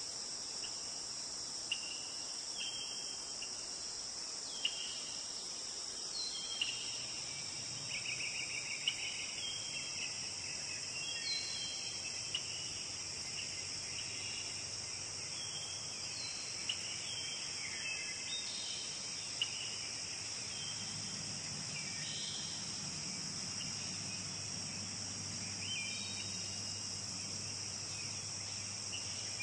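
A steady, high-pitched insect chorus, with short chirps a little lower in pitch dotted through it. A faint low hum joins about two-thirds of the way in.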